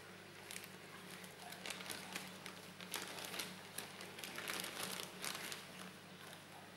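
Thin clear plastic bag crinkling as hands open it and reach in for a small rubber part, with irregular crackles that die away near the end.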